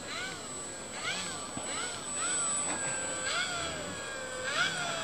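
Electric motor and propeller of a Dynam Hawker Hurricane RC model plane taxiing on grass, its pitch rising and falling again and again with short throttle blips, then one longer, lower sweep and a last rise near the end.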